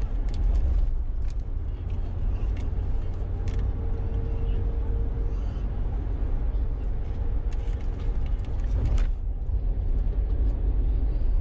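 Steady low road and engine rumble heard inside a car cruising on a highway at about 75 km/h, with a few light clicks scattered through it.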